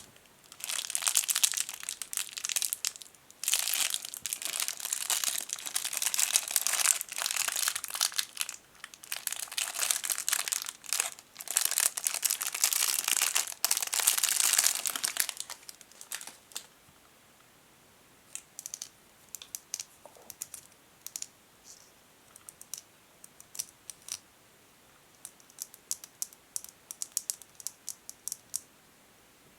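A tiny plastic bag around a contact lens case being crinkled and squeezed by hand in dense bursts for about fifteen seconds. After that come scattered light fingernail taps on plastic, single taps and quick little runs.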